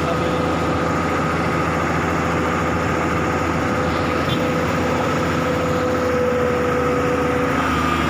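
Heavy diesel engine of earth-moving equipment running steadily at a constant speed, with a steady whine over its low hum.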